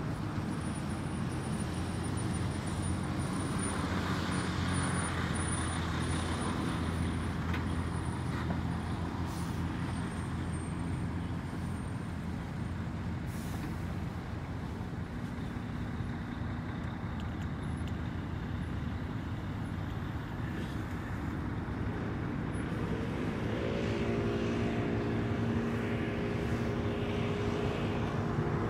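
Steady highway traffic: a constant roar of tyres and engines from passing cars and trucks. About 23 seconds in, a heavy vehicle's pitched engine drone joins in and holds to the end.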